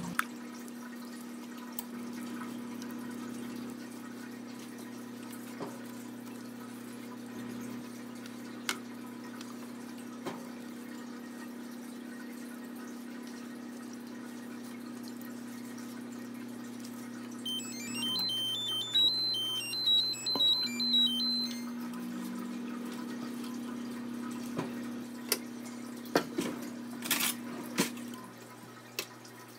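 Steady low hum with light clicks and scrapes of a glazing spatula on bacon, wire racks and baking trays. A brief high warbling sound comes about two-thirds of the way through.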